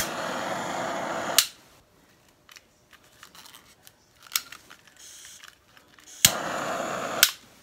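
Handheld torch fired twice over wet poured acrylic paint to pop its air bubbles. Each time there is a sharp click as it lights, a steady hiss of flame, and a click as it shuts off: the first burn lasts about a second and a half, the second about a second, near the end.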